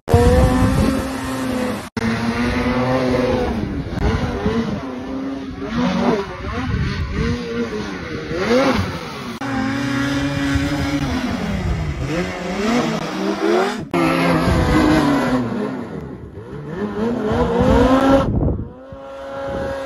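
Snowmobile engines revving hard, their pitch climbing and dropping again and again as the throttle opens and closes, with abrupt breaks about two seconds in and near fourteen seconds.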